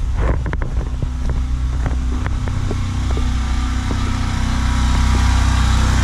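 DuroMax XP4850EH portable generator's single-cylinder engine running steadily on propane, getting a little louder near the end. A few light clicks sound over it in the first couple of seconds.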